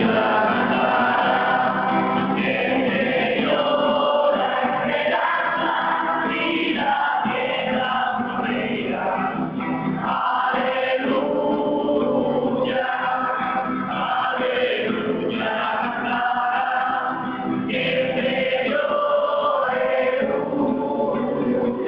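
A group of voices singing a church song together, accompanied by an acoustic guitar, starting abruptly and continuing steadily.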